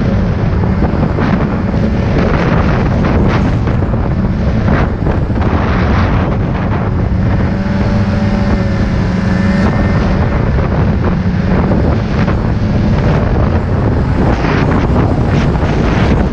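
Snowmobile engine running steadily at trail speed, with wind buffeting the microphone. The engine tone comes through more clearly about seven to ten seconds in.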